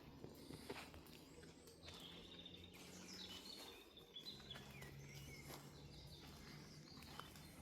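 Faint forest birdsong: scattered high chirps and a few short falling whistles. Under it runs a faint, steady low hum, with a few soft clicks.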